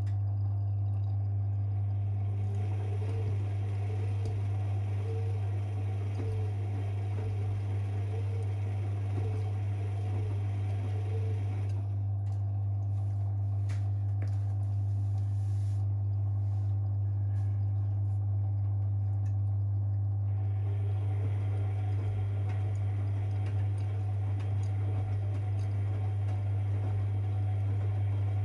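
Privileg 5020 front-loading washing machine on its wash cycle: a steady low hum throughout, with the drum turning for about ten seconds, pausing about twelve seconds in, and starting again around twenty seconds in.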